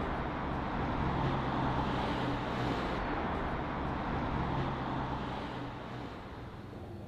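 Outdoor traffic noise: a motor vehicle's steady engine hum over road rumble, fading away about six seconds in.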